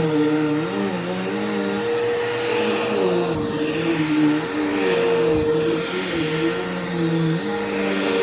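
Bissell PowerForce Helix upright vacuum cleaner running on carpet: a steady motor whine with lower tones that waver up and down in pitch every second or so.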